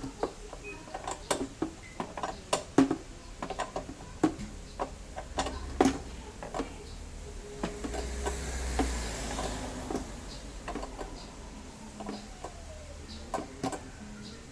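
Hand tools and screws clicking and tapping irregularly against metal and plastic as the scooter's U-box mounting screws are undone. A low rumble swells briefly about eight seconds in.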